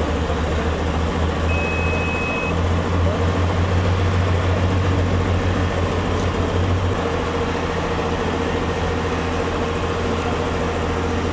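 A large vehicle's engine running steadily close by, with a low throb that eases about seven seconds in. One short high beep sounds near the start.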